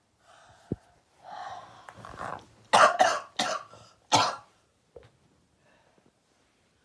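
A person with a cold coughing: a breathy lead-in, then a run of four sharp coughs about three seconds in.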